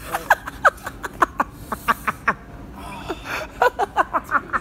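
People laughing hard, in quick repeated bursts of breathy ha-ha pulses.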